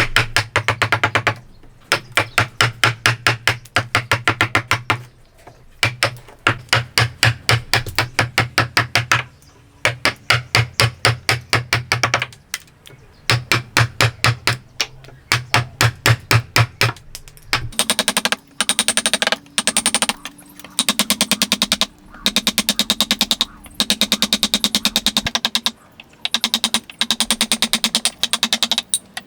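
Woodworking hammering: rapid runs of repeated strikes, about seven a second, each run lasting a second or three with short pauses between. About two-thirds of the way in the strikes take on a higher, brighter tone.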